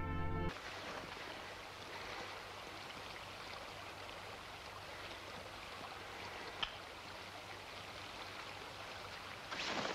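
Steady, even hiss, the background noise of an old black-and-white film soundtrack, with one short click about six and a half seconds in.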